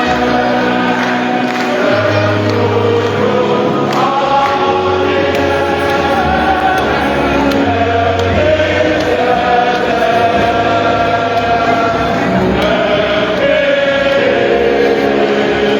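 Church choir singing a hymn in parts with instrumental accompaniment, the held bass notes changing every couple of seconds.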